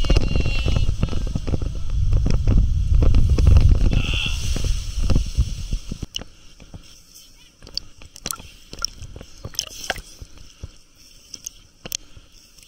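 Water rushing and a raft tube rumbling and scraping down a water slide, loud and dense, with a brief high squeal about four seconds in. The sound cuts off about six seconds in to a much quieter stretch of light water sounds and scattered clicks.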